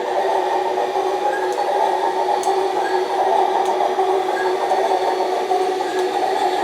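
RC hydraulic excavator model running with a steady, even mechanical hum, with faint short chirps repeating about every second and a half.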